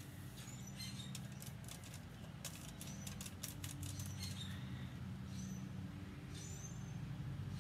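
Paintbrush stirring and dabbing acrylic paint: a quick run of small soft clicks about midway, over a steady low hum.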